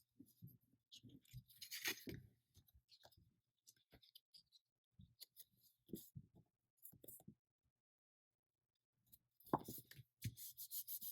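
Faint paper handling: scattered light rustles and taps, then near the end a quick run of rubbing strokes on paper, about five a second, as glue is spread or a glued paper piece is smoothed down.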